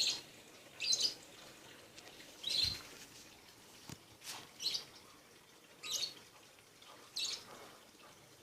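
A small bird chirping: short, high chirps repeated roughly once a second, with uneven gaps.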